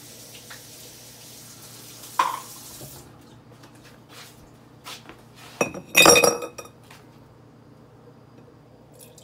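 Large ice cubes going into a glass mason jar: a single knock about two seconds in, then a loud clatter of ice against glass with a ringing clink around six seconds in.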